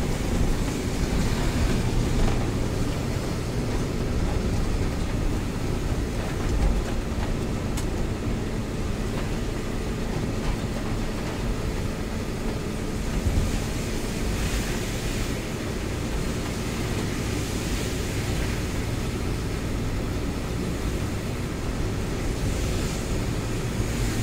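Mitsubishi Fuso Fighter truck's diesel engine running steadily while driving, with tyre noise on a wet road, heard from inside the cab.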